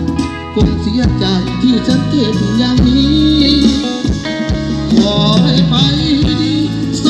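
Loud music with a singer, a heavy bass line and drum hits, playing through an outdoor stage PA's large bass and mid-high speaker cabinets during a sound check.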